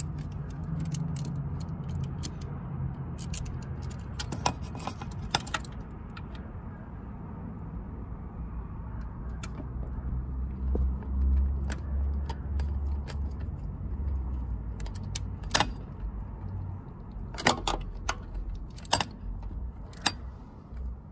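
Scattered metal clinks and clicks of a socket wrench working loose the 10 mm bolts on a vehicle speed sensor, some in quick clusters, over a low rumble.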